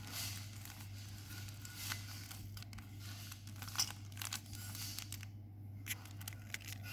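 A plastic Rubik's Cube being twisted by hand: quick, uneven clicks and rasps as the layers turn, with a short pause about five seconds in. A steady low hum lies underneath.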